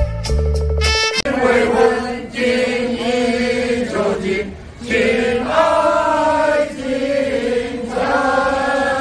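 A short instrumental phrase with a heavy bass line, ending about a second in, then singing voices in slow, long-held wavering notes.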